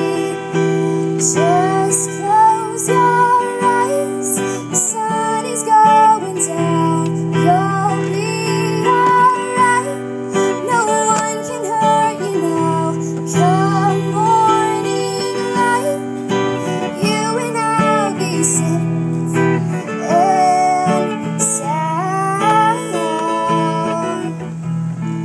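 A song played on strummed acoustic guitar, with a singer's voice carrying a gliding melody over it.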